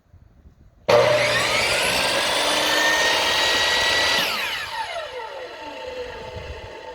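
Corded electric power tool switched on about a second in: the motor spins up with a rising whine, runs steadily for about three seconds, then is released and winds down with a falling whine. The tool running shows that the repaired plug on the cut cord carries power.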